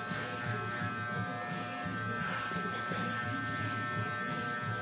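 Electric hair trimmer buzzing steadily as it is run over the upper lip, trimming a mustache.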